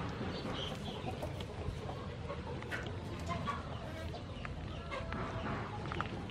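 Chickens clucking now and then over a steady low background noise.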